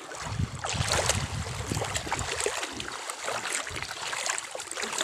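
Water sloshing and splashing in a shallow lake, with uneven low wind rumble on the microphone.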